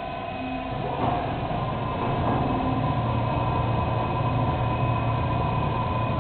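IBIS dough divider-rounder switching on about a second in, then running steadily with a low mechanical hum and a faint whine as it divides and rounds a batch of dough.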